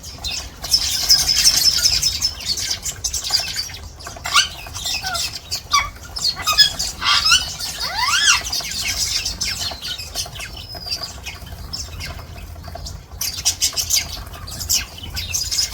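Small songbirds chattering and twittering, several calling at once. A few whistled notes sweep up and down near the middle.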